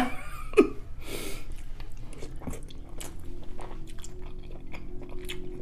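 Close-miked chewing of a mouthful of seafood boil, with scattered short wet clicks and smacks, and a brief hiss about a second in.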